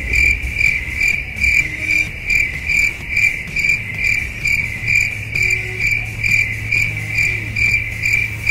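A cricket chirping in a steady, even rhythm, about two and a half chirps a second.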